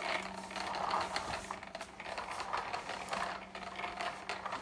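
Plastic toy tractor pushed along a wooden floor, its wheels and parts giving a quick, uneven clicking and rattling.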